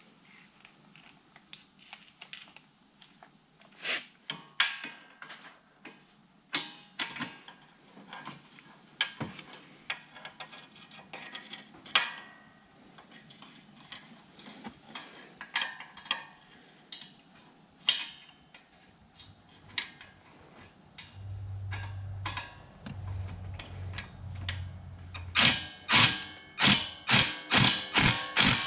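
Metal tools clinking and knocking while a bolt is worked in under the ATV, then near the end a ratchet wrench clicking in quick repeated strokes, two to three a second, as the Allen-head bolt of the radiator relocation bracket is tightened.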